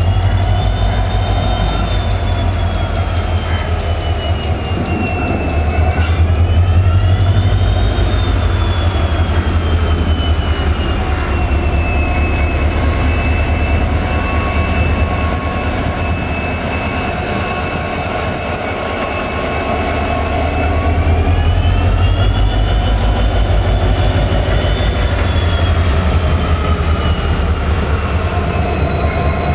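EMD WDG4 diesel-electric locomotive running, its 16-cylinder two-stroke EMD 710 engine giving a steady low hum. Over the hum a high whine of several tones rises and falls in pitch a few times as the locomotive moves while shunting. There is one sharp click about six seconds in.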